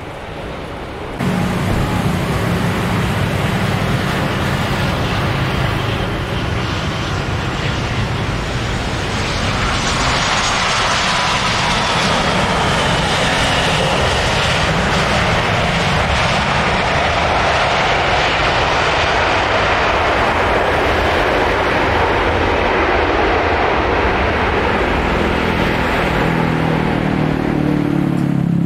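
Jet engines of a Super Air Jet Airbus airliner running as it rolls along the runway: a steady rushing noise that comes in abruptly about a second in, with a faint high whine over it in the middle stretch.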